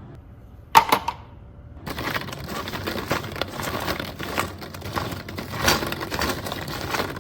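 Two sharp clicks about a second in, then a dense, continuous clicking and rattling of small hard objects.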